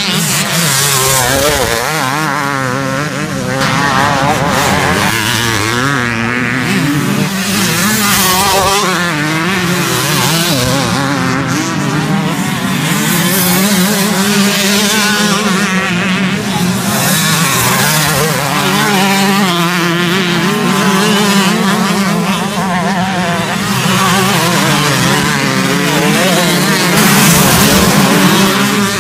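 Several two-stroke motocross bikes racing, their engines revving up and down in overlapping waves as riders brake into and accelerate out of a corner. One bike passes close under hard acceleration near the end, the loudest moment.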